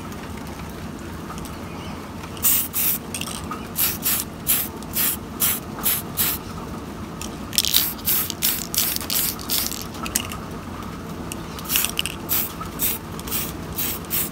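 Aerosol can of matte black spray paint hissing in many short spurts, with a few longer ones, starting about two seconds in. The quick spurts lay light mist coats over primer to build up layers.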